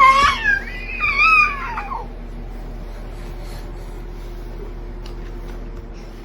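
A cat meowing twice, a short call and then a longer, wavering one.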